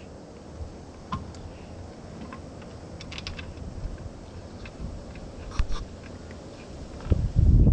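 Scattered light clicks and taps of bolts being handled and started by hand into an outboard motor's lower unit, with a short low rumble near the end.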